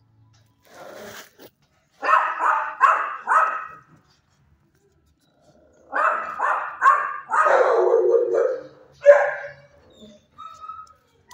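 A young dog barking in quick runs: four short barks about two seconds in, then three more that run into a longer drawn-out bark, and one last sharp bark a little later.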